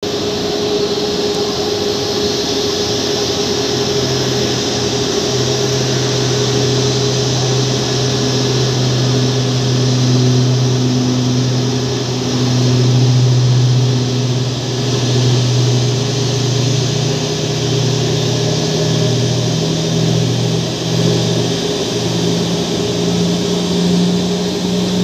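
Boeing 737's twin jet engines running at taxi power, a steady loud rushing whine with a constant hum under it. The low note slowly climbs in pitch over the second half as the jet rolls in.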